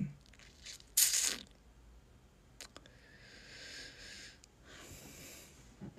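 Close-miked breathing sounds from a person: a short, sharp sniff or breath about a second in, then two longer, softer breaths.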